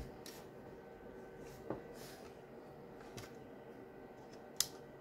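Faint clicks and light knocks of hands handling the parts of an opened laptop, a few scattered touches with a sharp click near the end.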